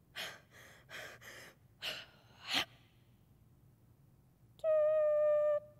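A woman's ragged, gasping breaths, five or six in quick succession. Near the end comes a steady high tone like a long beep, held for about a second.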